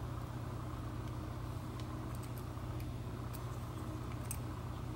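Steady low hum of room tone, with a few faint light metallic clicks as a key is worked into a disassembled wafer-lock core.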